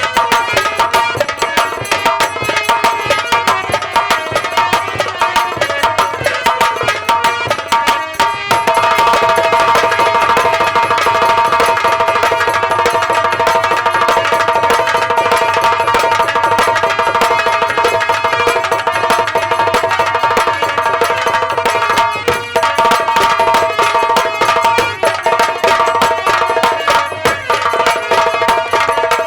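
Live Indian folk-theatre band music: fast, dense drumming under a held melody line, which grows louder about eight seconds in.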